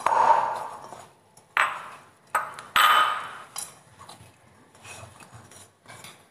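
Dough kneaded by hand in a metal bowl: a few sharp knocks of the bowl, each trailing off, the loudest about three seconds in with a short metallic ring, then softer knocks and rubbing.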